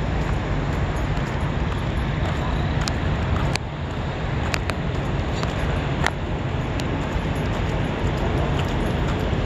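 Steady low rumble of trucks and road traffic, with a few light clicks in the middle seconds.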